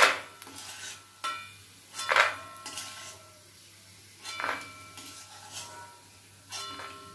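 Perforated metal skimmer clanking and scraping against a black iron kadhai while scooping fried peanuts out of the oil: about five sharp metallic clanks, each with a short ring, a second or two apart.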